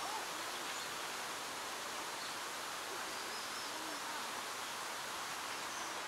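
Steady outdoor park ambience: an even background hiss, with faint distant voices and a few faint high chirps.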